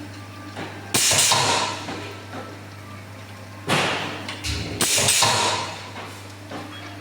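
Roll seam welding machine at work: a steady low hum, with three loud bursts of hissing that each start with a sharp knock, about a second in, near four seconds and around five seconds.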